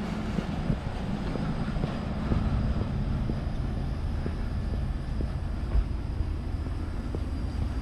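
Footsteps at a walking pace, about two a second, over a steady low rumble on the microphone.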